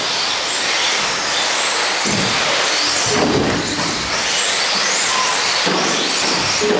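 Radio-controlled off-road cars racing on a carpet track: a high whine of their motors rising and falling in pitch as they speed up and slow down, with a few louder, lower surges.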